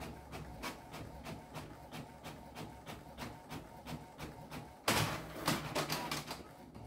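Canon GX6010 inkjet printer printing, with a regular mechanical clicking about three times a second as the print head passes back and forth. About five seconds in a louder rush of paper-feed noise lasts a second or so as the sheet is moved through.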